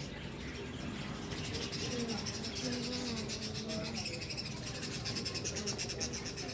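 Birds chirping in a steady, fast, high-pitched chatter.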